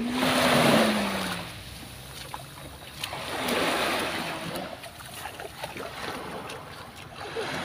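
Small sea waves washing up onto a sandy beach, two swells of wash about three seconds apart. A brief low tone rises and falls during the first wash.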